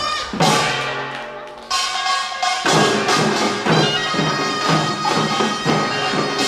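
Korean pungmul percussion band playing pangut: small gongs and drums struck in a fast, steady rhythm, with a held reed-pipe melody over it. A loud stroke about half a second in rings away, then the band picks up again and drives on.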